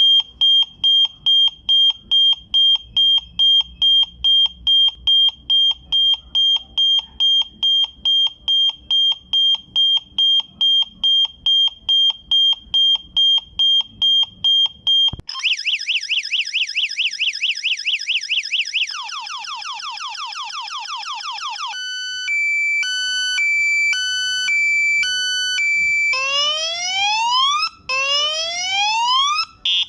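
A 12 V reverse-gear alarm siren sounding. For about fifteen seconds it gives a steady high beep about three times a second. It then switches through other siren tones: a fast warble, falling chirps, a two-tone hi-lo, and rising whoops.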